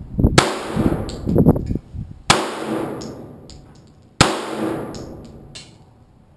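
Three 9mm pistol shots about two seconds apart, each sharp crack followed by a long echoing decay, firing 115-grain full metal jacket rounds.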